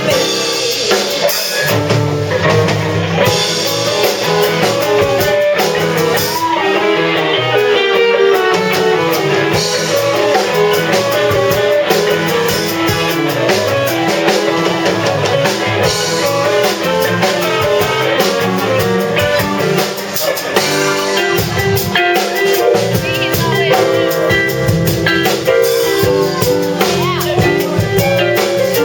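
A band playing a song with drum kit and guitar, possibly with some singing.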